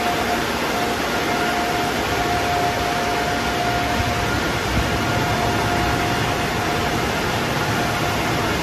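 Car wash dryer blowers running, a steady rush of forced air with a faint steady whine.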